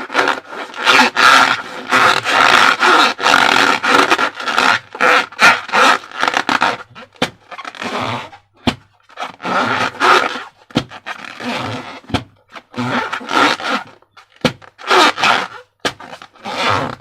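Slime being squished and kneaded by hand, wet squelching and crackling in irregular bursts with a few sharp clicks.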